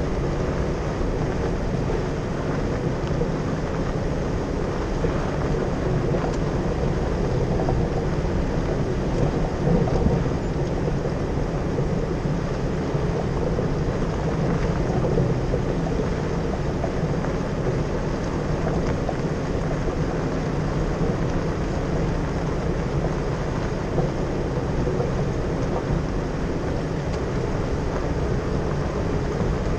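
Jeep driving on a gravel dirt road: steady engine drone mixed with tyre and road rumble.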